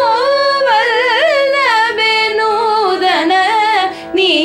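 Female singing of a Carnatic kriti in raga Hamsanandi: one long drawn-out syllable with wavering ornamented pitch over a steady drone, with a short breath break near the end.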